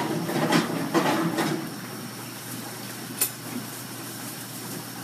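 Pot of carrots boiling on the stove with a steady hiss. A utensil clatters and scrapes in the pot during the first second and a half, and there is a single click about three seconds in.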